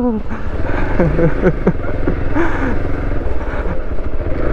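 Hero Xpulse single-cylinder motorcycle engine running steadily while being ridden over a rough off-road dirt trail.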